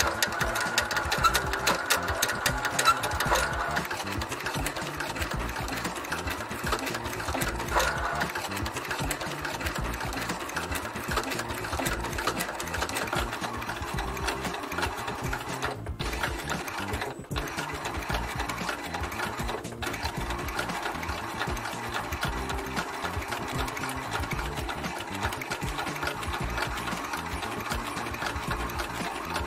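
Global industrial cording sewing machine running at speed, stitching a cord onto shoe leather with a rapid, steady chatter of needle strokes. A high whine sits over the first few seconds.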